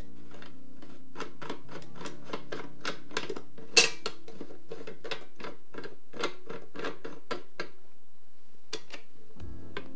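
Quick, light metallic clicks, about three a second, from a round metal thumbscrew being worked by hand on a metal PC-case panel. About four seconds in there is one sharp, louder clack, and the clicking stops a couple of seconds before the end.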